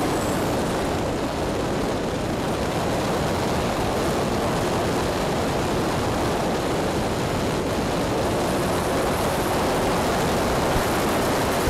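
Steady rush of airflow and propeller noise picked up by a camera mounted on an E-flite Sukhoi electric RC airplane in flight, an even noise that holds level throughout.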